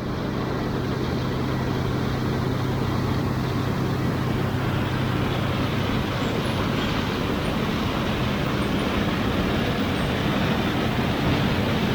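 Heavy farm machinery running steadily: a dense rushing mechanical noise with a low engine hum that fades out about halfway through.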